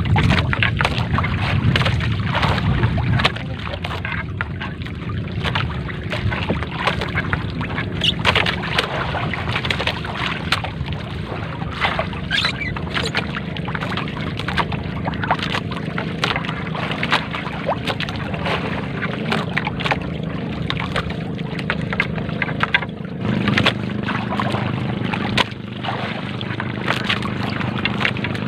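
A gill net being hauled by hand over a small boat's gunwale: frequent short rustles, scrapes and light knocks of net and hands against the hull. Under them a steady low hum of the boat's engine runs, changing note about 23 seconds in.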